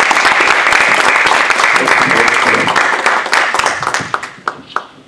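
Audience applauding: steady clapping that thins out after about three and a half seconds and ends in a few last scattered claps.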